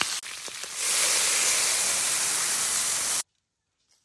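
Pig's trotters sizzling in hot oil in a large black wok: a loud, even hiss that dips briefly, comes back stronger about a second in, and cuts off suddenly just after three seconds.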